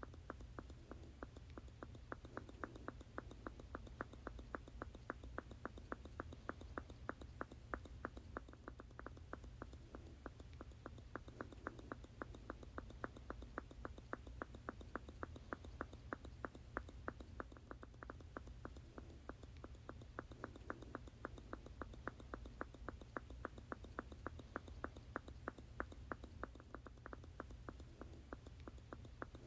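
Bottle squirting over and over in a steady loop, about three short squirts a second, with a steady low hum underneath.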